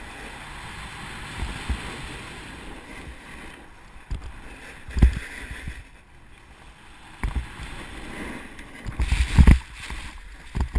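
Snowboard scraping and hissing over packed snow, with wind on the microphone of a body-worn action camera and a few thumps along the way. About nine seconds in comes the loudest cluster of thumps and snow noise as the rider slips out and falls.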